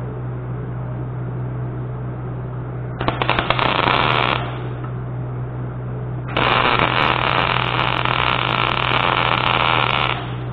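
MIG welder arc crackling and sizzling as the guide piece is welded in its fixture: a short weld of about a second and a half three seconds in, then a longer weld of about four seconds, over a steady low hum.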